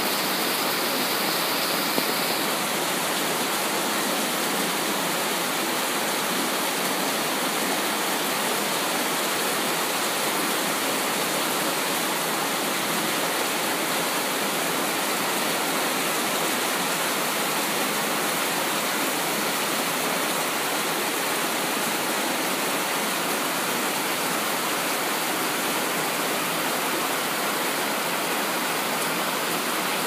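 Heavy tropical rain pouring steadily onto palm fronds and broad leaves, a dense, even hiss of drops with no letup.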